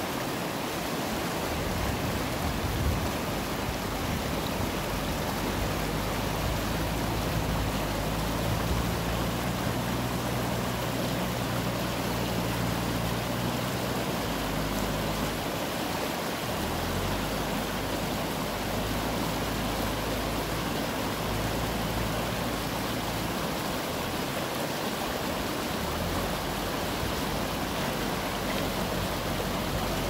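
Steady rush of a fast-flowing river, with a JCB backhoe loader's diesel engine running underneath, its low note changing pitch several times as it works.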